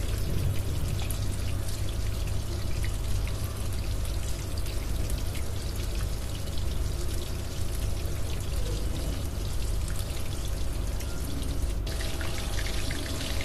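Coated chicken drumsticks deep-frying in hot oil in a kadai: a steady bubbling sizzle. This is the first, partial fry on medium-to-low flame.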